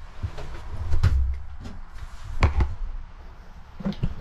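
A few knocks and thumps of a wooden cabin locker and joinery being handled and opened, the loudest about two and a half seconds in.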